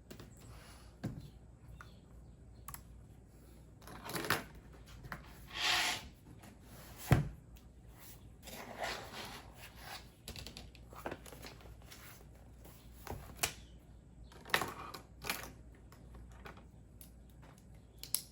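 Computer keyboard typing in irregular, scattered keystrokes, mixed with a few louder rustling handling noises and one sharp knock about seven seconds in.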